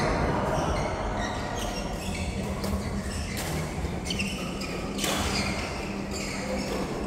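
Irregular sharp hits of a doubles ball-and-racket rally, roughly one a second, ringing in a large indoor hall over a low steady hum.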